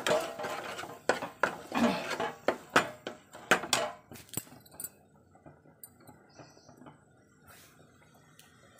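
Steel ladle scraping and clinking against a non-stick kadai while stirring thick fried masala paste. There is a quick run of scrapes and knocks for the first four seconds or so, then only faint, sparse taps.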